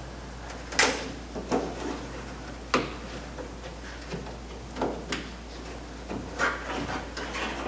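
Handling noises as a rubber window channel weather strip is pushed by hand up into a car door's window frame: a series of short, irregular knocks and rubs.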